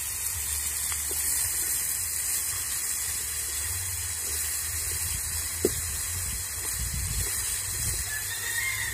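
Sliced vegetables in a metal pot over a wood fire sizzling with a steady hiss as they are sautéed and stirred with a stalk, with low wind rumble. One sharp knock a little past halfway through.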